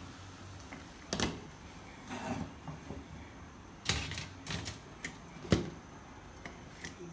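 Glass pot lid with a metal rim being handled and set onto a large cooking pot: a few separate sharp clinks and knocks, the loudest about four and five and a half seconds in.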